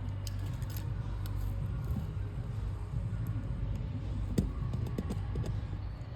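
Small clicks and taps of hands working wires and a screwdriver at a switch's screw terminals, a few sharper clicks in the second half, over a steady low hum.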